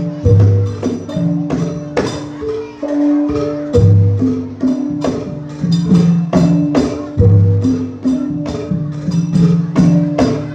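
Javanese gamelan playing classic jathilan music: metallophones ringing a repeating melody over quick drum strokes, with a deep low stroke about every three and a half seconds.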